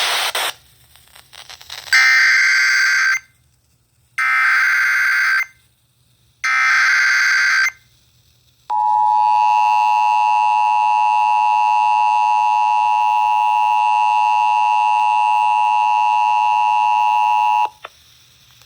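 Emergency Alert System signal: three short bursts of warbling data (the SAME header), followed by the long steady attention tone of about nine seconds, which cuts off abruptly.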